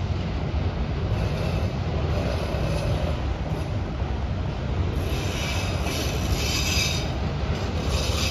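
Empty autorack freight cars rolling past with a steady low rumble of wheels on rail. About five seconds in, a high-pitched wheel squeal sets in for a couple of seconds, and comes back briefly near the end.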